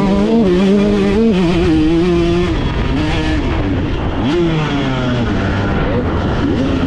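Off-road dirt bike engine under throttle, its pitch wavering up and down with the throttle over rough ground, then a quick rev-up about four seconds in.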